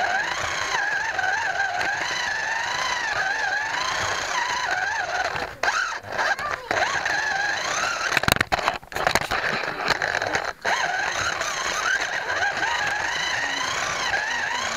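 Scalextric slot car's small electric motor and gears whining, heard from on board the car, the pitch rising and falling as the car speeds up and slows through the track. A few brief cut-outs and sharp clicks break the whine.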